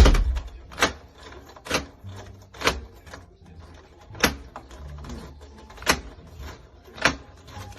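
Hammer blows, about one a second and somewhat uneven, the first the loudest, knocking a part into place on a small homemade table.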